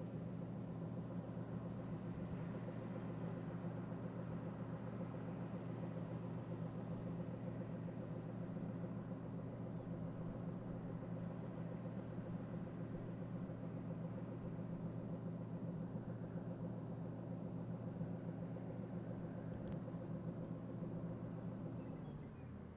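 A large engine of harvest machinery running steadily at a constant speed; the sound drops away near the end.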